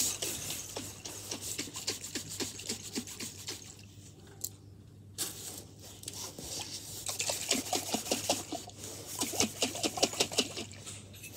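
Rapid scratching and crinkling as children's fingers pick at paper labels on glass jars, getting busier in the second half.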